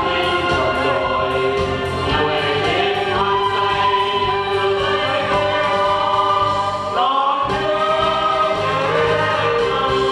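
Mixed male and female vocal group singing a Vietnamese song into microphones, with instrumental accompaniment.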